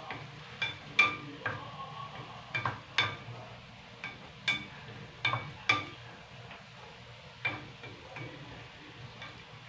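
Wooden spatula stirring chicken in a stainless steel pan, knocking against the metal about ten times at uneven intervals, each knock leaving a short metallic ring.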